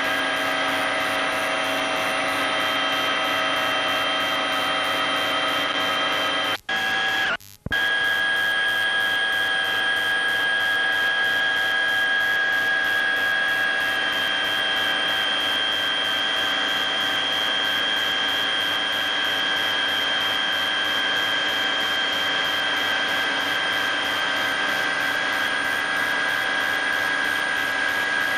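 Helicopter cabin noise: a steady turbine and gearbox whine made of several held tones over a rushing noise. The sound drops out twice for a moment about seven seconds in.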